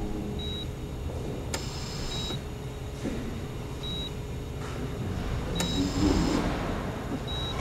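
Patient heart monitor giving a short, high beep about every 1.7 seconds, five times, over a steady low rumble. Twice, about a second and a half and five and a half seconds in, a click is followed by a short hiss.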